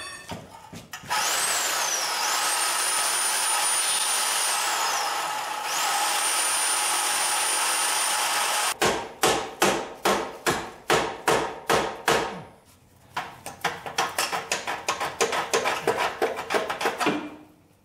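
A power tool runs steadily for several seconds with a high whine that rises and falls. Then a hacksaw cuts through the Corvette's steel exhaust pipe in separate strokes, about three a second, and after a brief pause quicker at about five a second.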